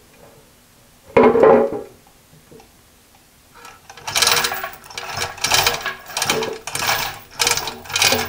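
A chain hoist's hand chain rattling in a run of short pulls, about one and a half a second, as it moves the milling machine head, after a single loud metal clunk about a second in.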